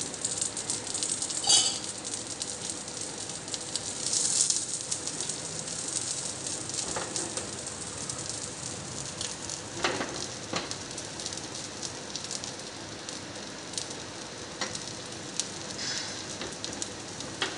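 Oil sizzling and crackling under a dosa frying on a hot Nirlep non-stick tawa, just after oil has been poured around its edge. The sizzle is busiest in the first few seconds, with a loud flare about four seconds in, and a few sharp ticks run through it.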